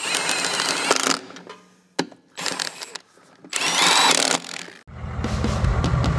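Cordless impact wrench running lug nuts onto a wheel in three short bursts. About five seconds in, a steady low rumble of the Scout's Nissan SD33T turbo-diesel engine takes over.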